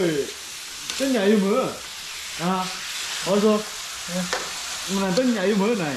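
Duck curry frying in a large metal pan on a propane burner, sizzling steadily while a ladle is worked through it, with a short pitched scrape about once a second.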